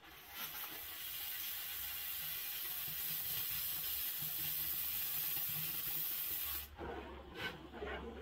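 Oxy-fuel cutting torch hissing steadily as it cuts through steel pipe; the hiss starts just after the start and cuts off abruptly about two-thirds of the way through. After that only a low rumble and a few light knocks remain.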